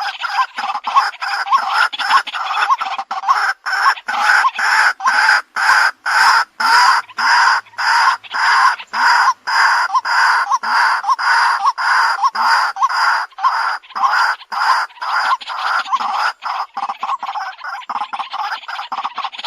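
White-breasted waterhen calling: a loud, long run of harsh repeated notes, about two to three a second, becoming quicker and less even near the end.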